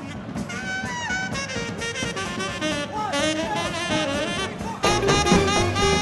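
Small swing band playing live, with a tenor saxophone carrying a melodic line with bent and sliding notes. About five seconds in, the whole band comes in louder with a heavy bass underneath.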